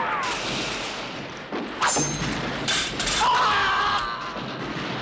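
Film fight soundtrack: a steady din of battle noise with two sharp thuds, one about two seconds in and another just before three seconds.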